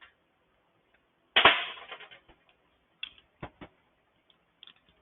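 One sharp metal knock, then a few lighter clicks, from hand tools and parts being handled on a Honda GCV small engine during its teardown.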